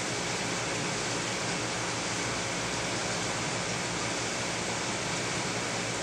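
Steady, even hiss of aquarium water circulation and equipment, with a faint low hum, unchanging throughout.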